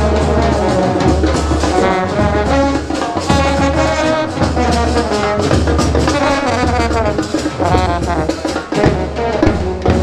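Procession brass band playing, with trumpets and trombones carrying a tune over a steady drumbeat.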